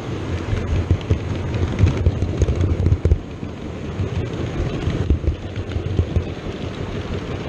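OO gauge model train running along the layout's track: a steady low rumble with faint scattered clicks.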